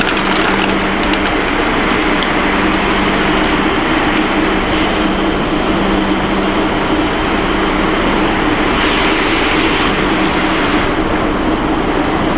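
Snack pellet extrusion production line machinery running, a loud, even mechanical din with a steady low hum. A brief burst of high hiss comes about two-thirds of the way through.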